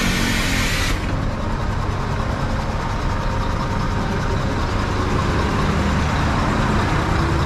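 Mitsubishi Fuso Fighter's 6M60 inline-six turbo diesel idling with a steady low rumble. A hiss of air stops abruptly about a second in.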